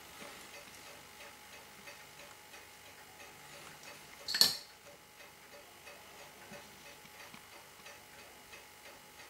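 Faint, steady, even ticking of a timepiece, with one sharp metallic click about four and a half seconds in as brass tweezers knock against the watch movement.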